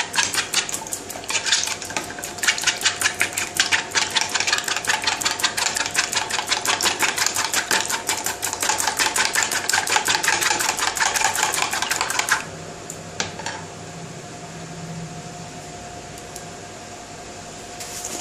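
Steel spoon whisking eggs in a plastic bowl, a fast, even run of clicking taps about five or six a second that stops suddenly about twelve seconds in. A faint steady hum and a couple of light taps follow.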